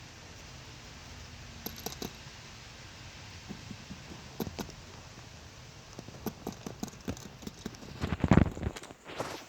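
Guinea pigs eating pellets and moving about: scattered small clicks and rustles, with a louder cluster of rustling knocks about eight seconds in and another just before the end.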